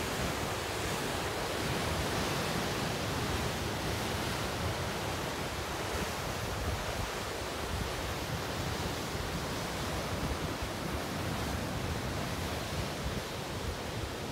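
Ocean surf breaking and washing over rocks along the shore, a steady rushing noise that eases a little near the end, with wind buffeting the microphone.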